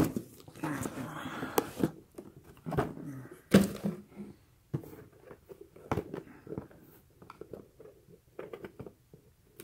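Cardboard boxes being handled: a cardboard shipping carton is tipped so a mug's gift box slides out, then the box is set down and handled, with scattered light taps, scrapes and rustle of cardboard and one louder knock about three and a half seconds in.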